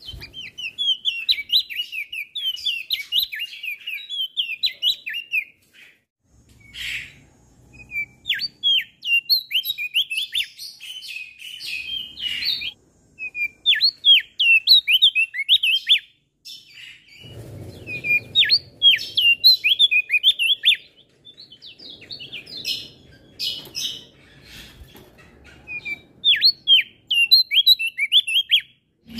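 Male opior jambul (crested white-eye) singing: phrases of quick, high chirping notes in bursts of a few seconds, with short pauses between them.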